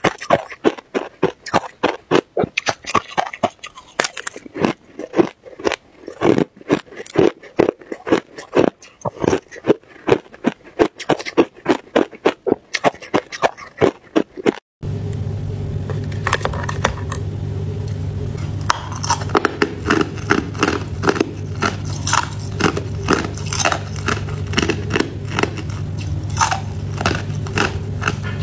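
Crushed ice crunched between the teeth in quick, close crunches, several a second. About halfway through there is an abrupt cut to a steady low hum, over which hard clear ice is bitten and crunched.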